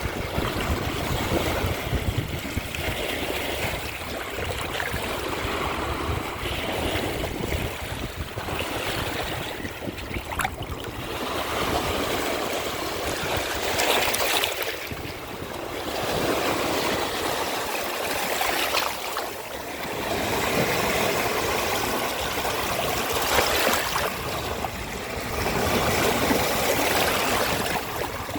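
Ocean waves washing onto the shore, with a continuous rush of water that swells and eases every few seconds as each wave breaks and runs back.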